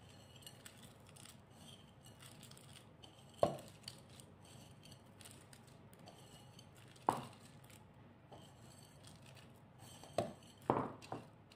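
Raw rice grains scattered by hand from a ceramic bowl onto mussel shells in a terracotta dish, a faint patter of grains. A few sharp clinks of crockery stand out, about three and a half seconds in, about seven seconds in, and a cluster near the end.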